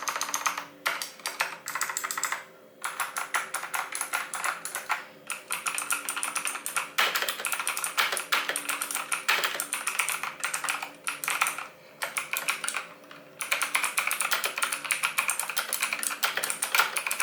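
Fast typing on a Morganstar Gigaware K28 mechanical keyboard with Content blue (clone blue) switches: a rapid run of loud, clicky keystrokes, with a few short pauses.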